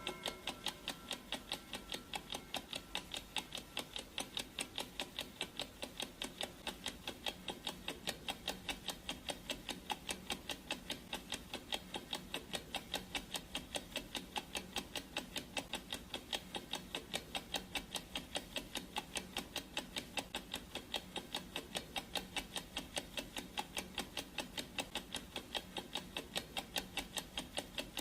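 Clock ticking sound effect: a steady, even run of ticks with no change in pace. The last of a ringing tone fades out at the very start.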